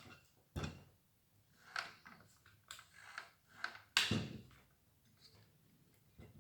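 Scattered clicks and knocks of a circular saw and a hex key being handled, about six of them, the loudest about four seconds in.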